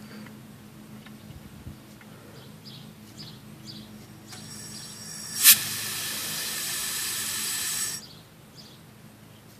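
Compressed air hissing through the smoke machine's air line and regulator as the flow is set low and judged by ear. The hiss is faint at first. A sharp click comes about five and a half seconds in, followed by a louder steady hiss for about two and a half seconds that cuts off suddenly.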